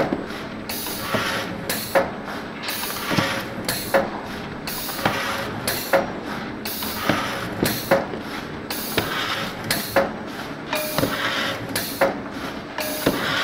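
Cardboard core (tube) cutting machine running in a steady cycle of about one stroke a second: each stroke a sharp click, a brief tone and a burst of hissing air.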